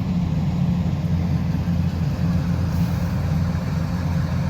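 Kubota DC-108X combine harvester's diesel engine running steadily, a low even drone.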